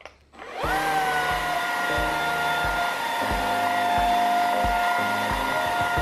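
JIGOO C500 cordless stick vacuum, fitted with its carpet brush head, switching on about half a second in: the motor's whine rises briefly, then settles to a steady pitch and runs evenly as the head is pushed over a carpet.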